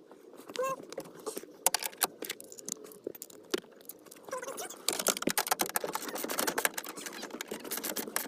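Hand tools clicking and scraping while the steering column bolts are screwed back on. From about five seconds in it turns into a run of rapid, steady clicks like a ratchet wrench turning.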